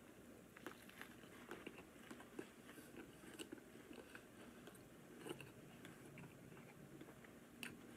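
A man biting into a Whopper burger and chewing the mouthful: faint, irregular small clicks and crunches, a few of them louder.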